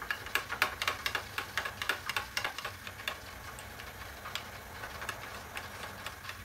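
Steel spoon clicking against a bowl while stirring thick curd and flour batter: quick light ticks, about three or four a second at first, thinning out about halfway through.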